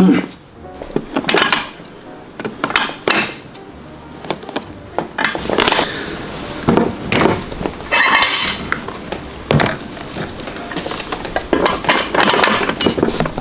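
Metal tool and heel nails clinking and scraping in irregular bursts as a leather boot heel is taken apart and its nails pulled out.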